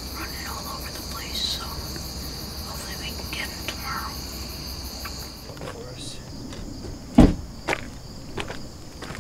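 Crickets trilling steadily in a high, pulsing chorus that thins out about five and a half seconds in. After that come a few sharp knocks, the loudest about seven seconds in.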